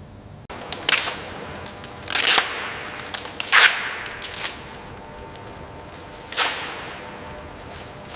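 Four sharp cracks spread over several seconds, each trailing off in a hiss, with a few lighter clicks between them.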